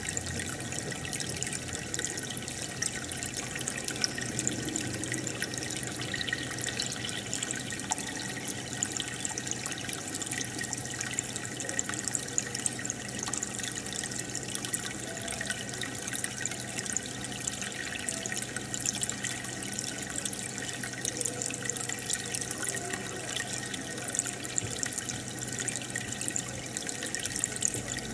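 Aquarium air bubbler: a stream of bubbles rising and breaking at the water surface, a steady bubbling and trickling with many small pops, over a steady low hum.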